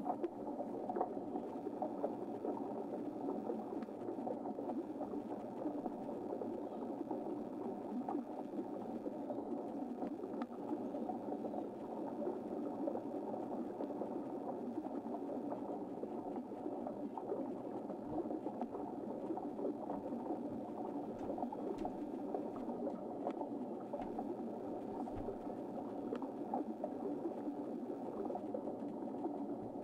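Steady, muffled rush of moving water with no breaks or distinct events.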